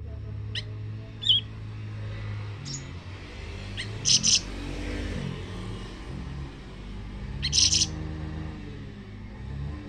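Small songbirds calling in short, high chirps. Two louder bursts of rapid notes come about four seconds in and again about seven and a half seconds in, over a low steady rumble.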